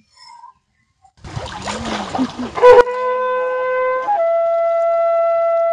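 Water splashing as a person is dipped under, then a blown horn sounding one long, steady note that steps up in pitch once about a second after it starts.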